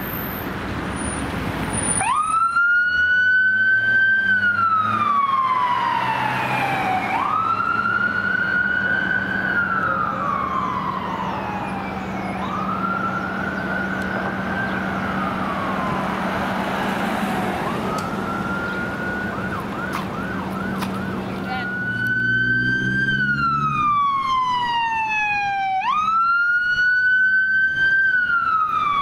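Ambulance response SUV's electronic siren sounding a wail, starting about two seconds in: each cycle rises quickly, then slides slowly back down, repeating about every five seconds.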